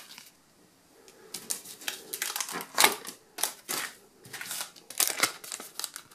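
Sticker booster packets and loose stickers handled on a table: crinkling and rustling, starting about a second in, with several sharp crackles as a packet is picked up and gripped at its top edge.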